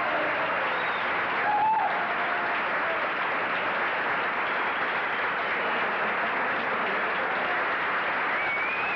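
Audience applauding steadily, with a few brief calls from the crowd over it, about two seconds in and near the end.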